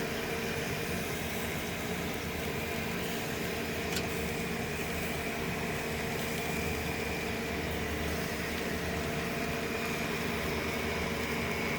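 Steady mechanical hum with a faint high whine, with one short click about four seconds in.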